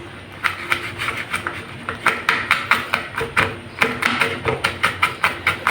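Knife chopping garlic on a cutting board: a steady run of short knocks, about four a second, quickening toward the end as the garlic is minced into small pieces.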